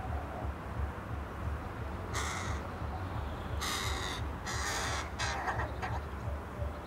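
Crow cawing: three harsh caws about two to five seconds in, followed by a few shorter, clipped calls, over a steady low background rumble.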